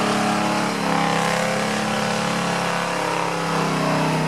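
GAZ-66 army truck's engine running at steady revs close by, with a constant low drone.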